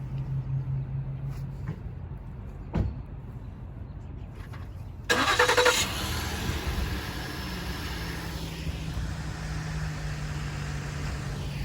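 A car engine starting about five seconds in with a loud short burst as it catches, then running steadily. A single click comes near three seconds in.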